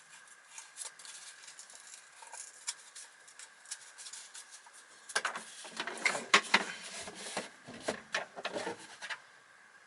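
Hard parts of a vacuum cleaner being scraped and rubbed against each other as they are worked apart by hand. It is light and scratchy at first, then becomes louder, denser scraping and knocking from about five seconds in.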